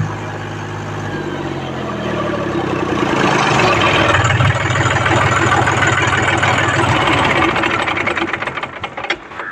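John Deere 5050 D tractor's three-cylinder diesel engine running, its exhaust blowing up through an air-filter element held over the vertical exhaust pipe to clean out the dust. The engine note drops just after the start, grows louder and rougher from about three seconds in, and dies away over the last couple of seconds.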